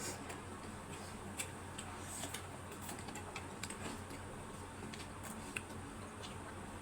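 Scattered light clicks of eating utensils against a plate at irregular intervals, over a faint steady low hum.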